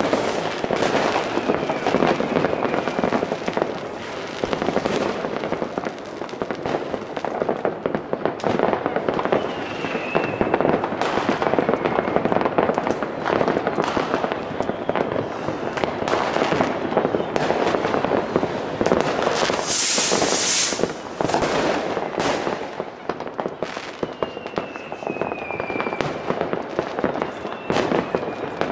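Many fireworks and firecrackers going off at once: dense, continuous bangs and crackling, with a few whistles falling in pitch and a loud hiss about twenty seconds in.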